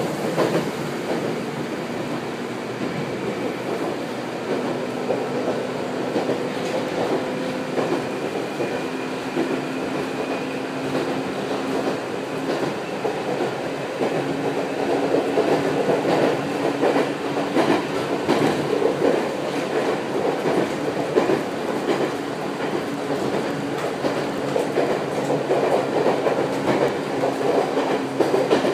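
Former Keio 3000-series electric train car running, heard from inside the passenger car: steady running noise and hum, with the wheels clacking over rail joints. It gets louder about halfway through.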